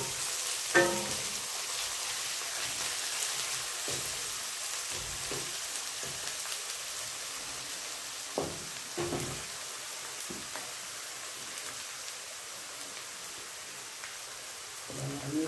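Chopped onions sizzling in olive oil in a nonstick kadai, a steady frying hiss, with a few knocks and scrapes of a wooden spatula stirring them in the pan.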